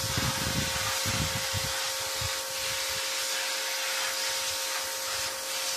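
Pressure washer running, its water jet spraying on the slats of a wooden garden table: a steady hiss with a steady machine hum under it.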